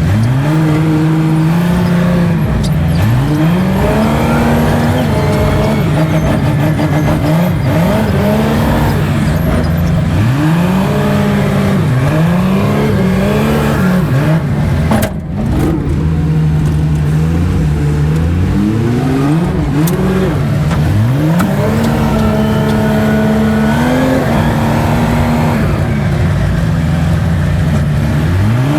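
A vehicle engine revving up and easing off again and again, with steady running stretches between the revs.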